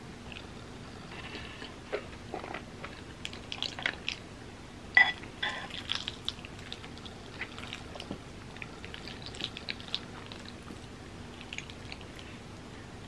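Close-up eating sounds: chewing and soft mouth noises from a mouthful of creamy pasta, with a metal spoon scraping and clinking in a ceramic bowl. Scattered small clicks throughout, the loudest a sharp clink about five seconds in.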